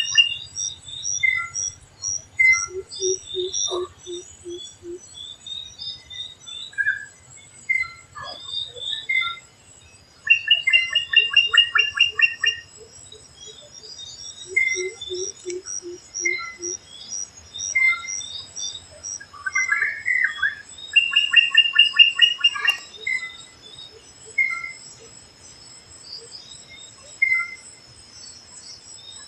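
Forest birds calling: many short chirps, with a rapid trill of repeated notes three times, each about two seconds long, and twice a lower quick run of notes. A steady high insect-like tone comes in about halfway through.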